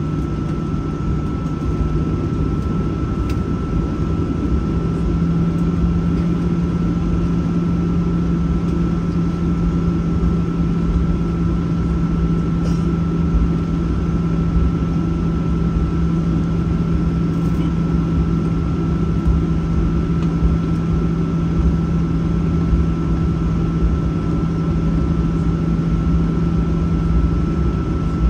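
Inside the cabin of a Boeing 737-800, its CFM56-7B jet engines run steadily at low power. There is a deep hum and a thin, high steady whine, and the hum rises slightly in pitch about five seconds in.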